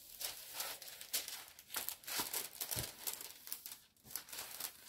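Clear plastic protective film on a diamond painting canvas crinkling and rustling in short, irregular crackles as it is lifted and smoothed back down over the glue.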